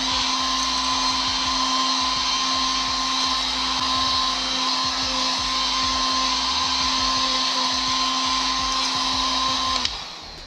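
Heat gun blowing hot air steadily with a constant motor hum to heat-set fresh airbrush paint on a lure, switched off about ten seconds in.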